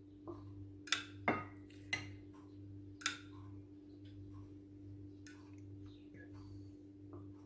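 A metal spoon clinking against a glass jug and a china plate as thick sauce is spooned out: a few sharp clicks in the first three seconds, then fainter taps, over a low steady hum.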